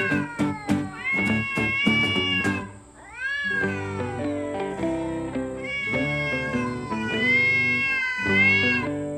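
Domestic cats meowing: several long, drawn-out meows one after another, each bending up and down in pitch, over background music.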